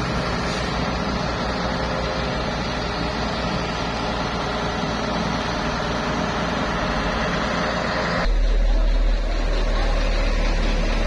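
Truck-mounted concrete pump running steadily, its diesel engine and pump working under load while pumping fresh concrete. About eight seconds in, the sound changes abruptly to a deeper, heavier low rumble.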